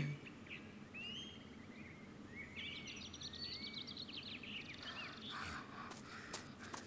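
Faint birds chirping over a steady outdoor background hiss, a few soft clicks near the end.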